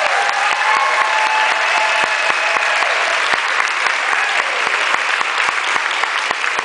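Audience applauding: dense, fast, irregular clapping that stays loud and steady.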